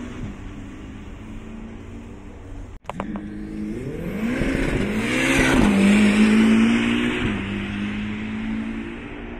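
Ferrari test mule's engine running hard on track. A steady engine note breaks off about three seconds in, then the note climbs as the car accelerates. It is loudest around the middle as the car passes, then holds a steady pitch and fades as it pulls away.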